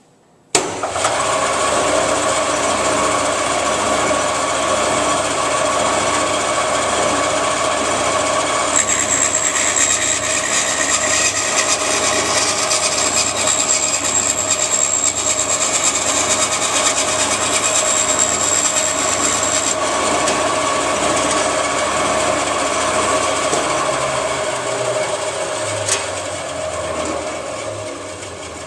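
A band saw switched on about half a second in and running steadily. From about nine to twenty seconds in, its blade cuts slowly through a wooden board fed by hand, adding a high whine over the motor. A click comes near the end as the saw winds down.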